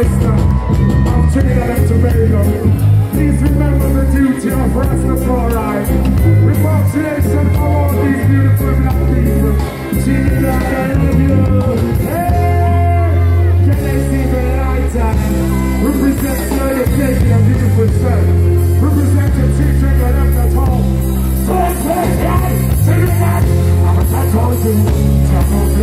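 Live reggae band playing with a male singer over a heavy, stepping bass line, amplified through a large outdoor stage sound system.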